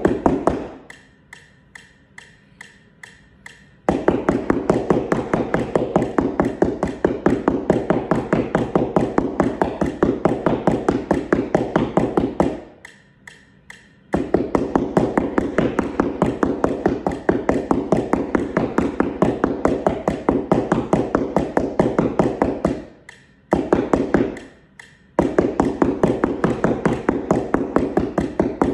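Mallets tapping fast, even strokes on a flat practice keyboard mat, a keyboard-percussion scale exercise. The strokes run in long stretches, broken by short pauses about a second in, around 13 seconds in, and around 23 to 25 seconds in.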